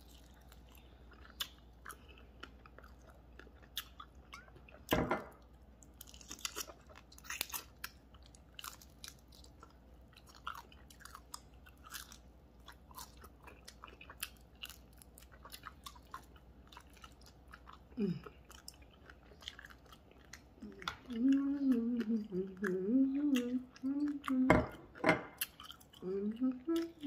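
A person chewing and biting crispy fried pig feet close to the microphone, making scattered wet mouth clicks and crunches. From about 21 to 25 seconds in, a wavering hummed voice sounds without words.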